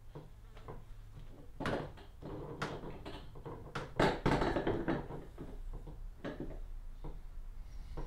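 Scattered knocks, clicks and rustling of hands working with hoist hardware and rope, with the loudest clatter about four seconds in, over a faint low steady hum.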